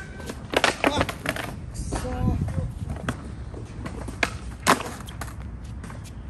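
Skateboard wheels rolling over concrete paving stones, with sharp clacks of the board popping and slapping down during flip-trick attempts: a quick cluster in the first second and a half, then single cracks, the loudest just before five seconds in.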